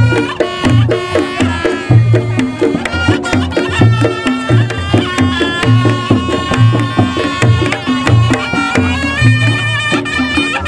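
Reog Ponorogo ensemble music: kendang drums beating a steady, driving pattern of deep strokes under a sustained reedy slompret melody, with repeating gong-chime notes.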